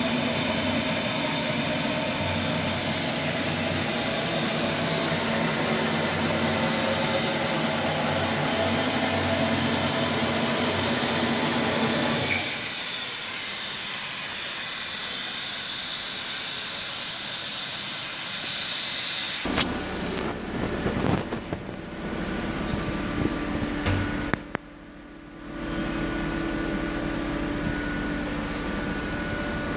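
CNC router running as its spindle cuts lines into an MDF sheet, a steady high whine over a mechanical hum. About two-thirds of the way through the sound changes abruptly, with a few sharp knocks and a brief drop, then settles into a steadier hum.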